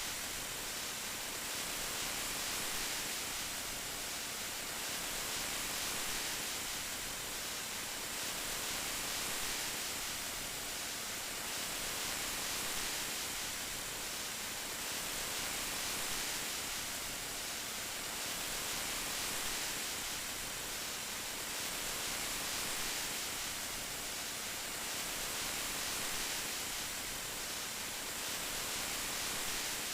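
Steady rain hiss, even and dense, swelling gently about every three seconds.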